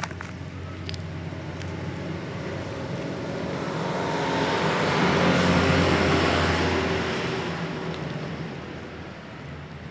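A motor vehicle passing by, its engine and road noise swelling to a peak a little past halfway, then fading away. A couple of faint clicks come near the start.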